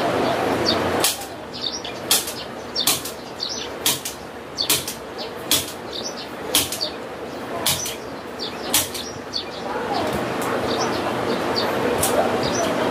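Mosquito net mesh being handled and pressed by hand along a window frame: a run of short sharp rustling pats, about one a second, with a steadier rustle at the start and again near the end.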